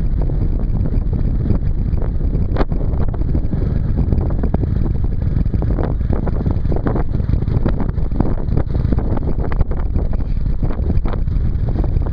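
Steady wind noise buffeting the microphone of a camera mounted on a moving motorcycle, with the motorcycle's engine running underneath.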